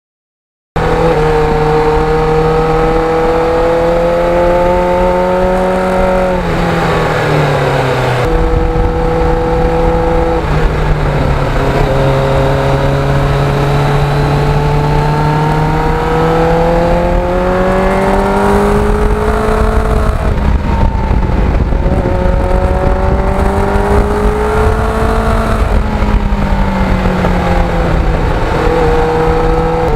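Motorcycle engine running at road speed, its note rising and falling in pitch several times, over a low rush of wind noise. It starts suddenly about a second in.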